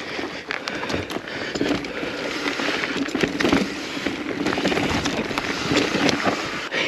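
Kona Process X mountain bike rolling fast over rough trail: steady tyre noise with frequent rattling and clicking knocks from the bike over bumps.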